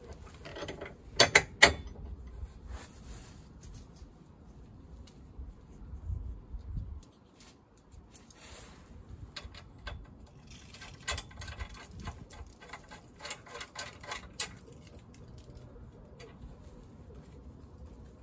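Hand tools working on metal tow bar fittings: scattered metallic clicks and clanks, with a few loud knocks a little over a second in and a run of quick ratchet-like clicks in the middle.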